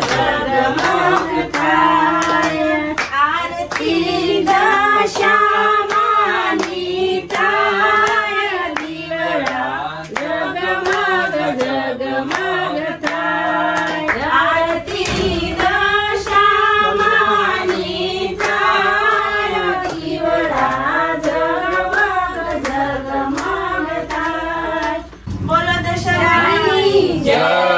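Singing with hand claps keeping a steady beat.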